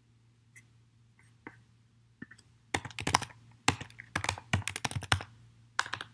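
Typing on a computer keyboard: a few scattered key clicks, then a quick run of keystrokes from about three seconds in, a brief pause, and a few more keystrokes near the end.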